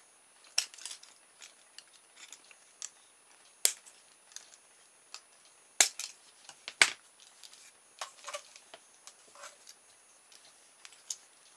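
Steel scissors snipping the tails off plastic cable ties, a series of sharp, irregularly spaced snips, the loudest about 4, 6 and 7 seconds in.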